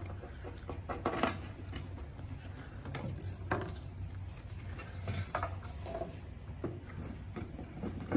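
Rack parts being handled and fitted together by hand, a shelf slotted into a side panel with its bolt put in, making scattered knocks and clicks. The loudest knock comes at the very end, and a low steady hum runs underneath.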